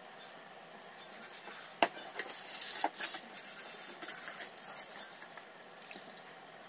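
Stainless steel plates and a spoon clinking and rattling on a wooden table, with scattered light knocks and one sharper knock about two seconds in.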